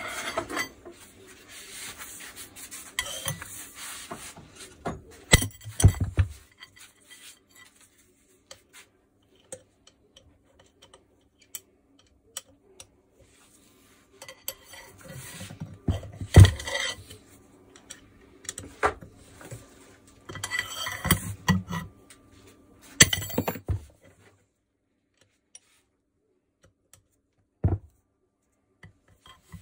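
Metal clinks, scrapes and knocks of a hex key turning the bolts that hold the barrel on a Makita HM1307C demolition hammer, in irregular bursts with pauses and a few louder knocks.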